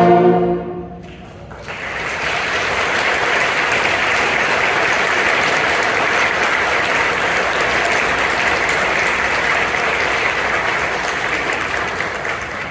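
Audience clapping after a performance, starting about a second and a half in and fading near the end. A held musical chord dies away just before the clapping starts.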